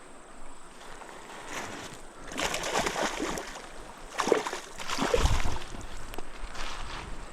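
Water sloshing and splashing in irregular bursts, starting about two seconds in.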